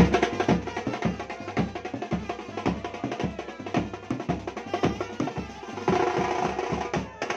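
A street band's drums beating a fast, busy rhythm, with a clarinet-like wind instrument carrying a melody over them, clearer near the end.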